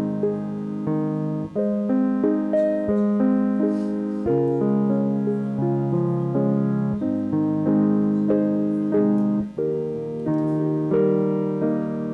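Piano music played as struck chords, each one fading before the next chord sounds.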